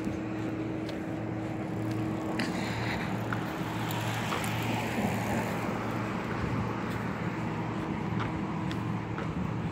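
City street ambience: a steady low hum of road traffic, swelling slightly about halfway through as a car passes.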